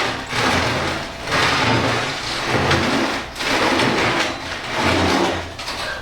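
Heavy steel tube welding-table frame scraping and grinding as it is slid across the floor in a series of about five pushes, each lasting about a second.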